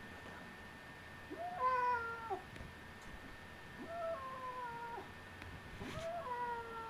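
A cat meowing three times in protest, each a long, drawn-out meow about a second long that slides slightly down in pitch, while it is held for its claws to be clipped.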